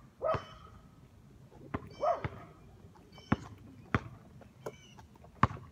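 A dog barking a few short, falling barks, with sharp irregular slaps of a basketball bouncing on pavement.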